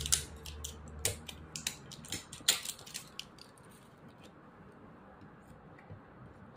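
Plastic screw cap of a soy sauce bottle being twisted open by hand: a run of sharp clicks and ticks over the first three seconds, then only faint handling ticks.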